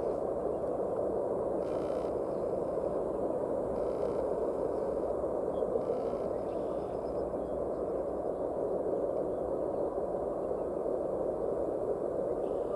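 Freight train cars (tank cars and covered hoppers) rolling past on the rails, a steady even roar of wheels on track.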